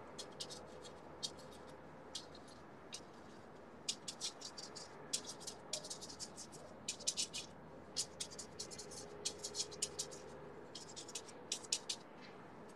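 Paintbrush scratching across a canvas in quick, irregular clusters of short strokes.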